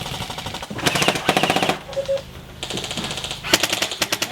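Airsoft electric rifle firing rapid full-auto bursts: a loud burst about a second in lasting about a second, then a short burst, then another run of fire near the end.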